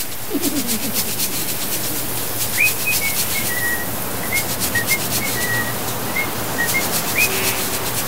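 Steady hiss of spraying water, with a person whistling a jaunty tune of short notes from about two and a half seconds in.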